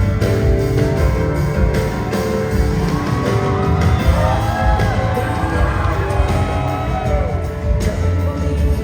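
Live rock music playing in a large hall, with steady held notes over a heavy low end. Through the middle several voices glide up and down over the band.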